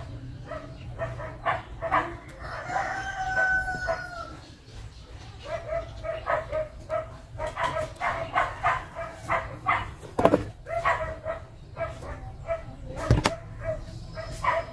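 A rooster crows once, a long call about three seconds in, over repeated short barks from a dog. Two sharp clicks stand out about ten and thirteen seconds in.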